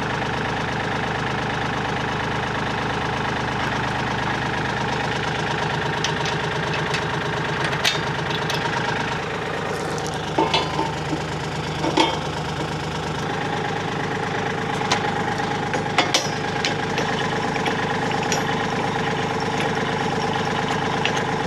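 Kioti tractor's diesel engine idling steadily, its note changing about nine seconds in and again about thirteen seconds in, with a few metallic clanks over it.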